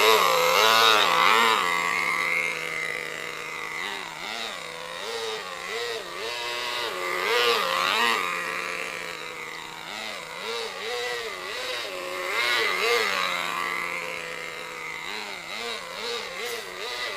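Thunder Tiger Sledgehammer's VRX .18 two-stroke nitro engine running on a break-in tank, its pitch rising and falling again and again as the truck is throttled up and down at medium speed.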